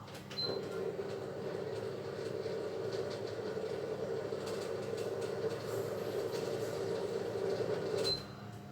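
Steady running noise of a moving train, starting and cutting off abruptly about half a second in and near the end.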